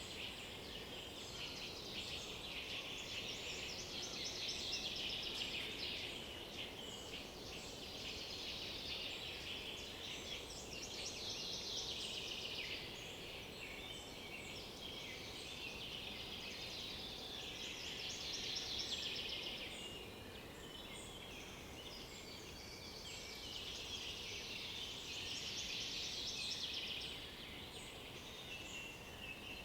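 Forest songbird singing long, rapid, high trilling songs of several seconds each, about four of them with short pauses between, over a faint steady forest background.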